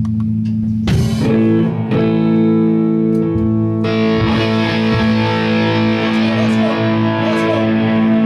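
Rock band playing live: electric guitars ring out a sustained chord about a second in, and about four seconds in the sound fills out with more distortion and the rest of the band.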